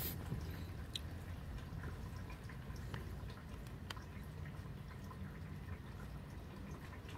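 Light rain heard from indoors through window glass: a faint steady hiss with a few scattered drips ticking.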